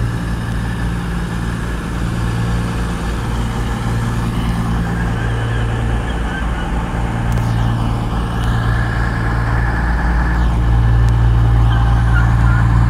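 CrossCountry Class 220 Voyager diesel multiple unit standing with its underfloor diesel engines idling: a steady low hum that grows slightly louder near the end.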